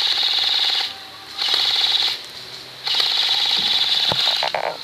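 Airsoft electric gun firing three bursts of full-auto fire, a rapid mechanical buzzing rattle; the last burst is about twice as long as the first two.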